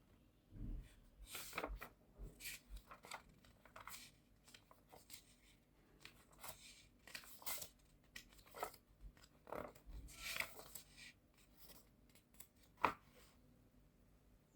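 A series of short, crisp scraping or snipping strokes at irregular intervals, with one sharp click near the end.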